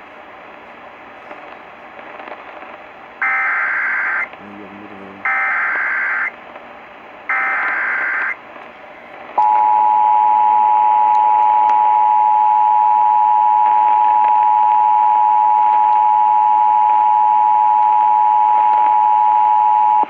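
Emergency Alert System header and attention signal over AM radio hiss: three one-second bursts of warbling digital data tones (the SAME header), about two seconds apart, then, about nine seconds in, the steady, loud two-tone attention signal, held for about ten seconds. It marks the start of an emergency alert broadcast, here a severe thunderstorm warning.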